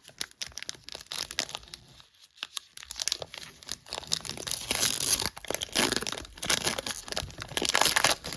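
Crinkling and tearing of a Pokémon TCG booster pack's wrapper being torn open by hand, with dense crackles that grow louder from about three seconds in.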